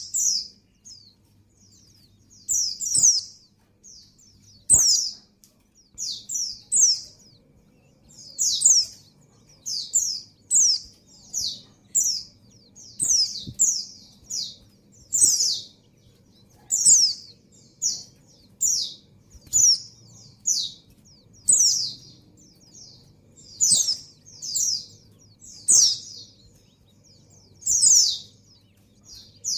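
Female white-eye (pleci) calling: short, high chirps that slide downward, mostly in twos and threes, repeated every second or two. It is the call of a female in breeding condition calling a male.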